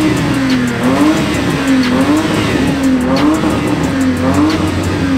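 A BMW E30's engine revving hard, its pitch rising and falling about once a second, over tyre noise as the car spins on the paving.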